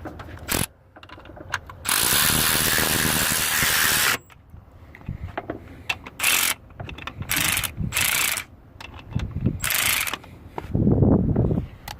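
Snap-on cordless extended-head ratchet running bolts in: one motor run of about two seconds, then four or five short bursts of about half a second each, with small handling clicks and a duller knock near the end.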